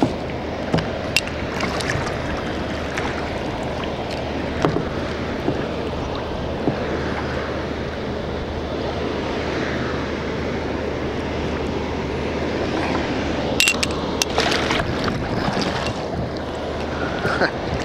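Steady low drone of a passing lake freighter, over the wash of water and wind. A few sharp knocks and splashes come close by near the start and again a few seconds before the end.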